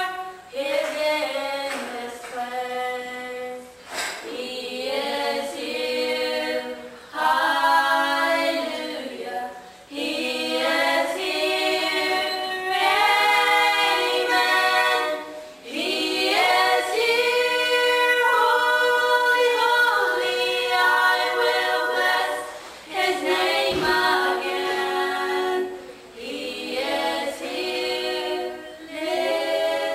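Four girls singing together a cappella, with no instruments, in sustained phrases separated by short breath pauses.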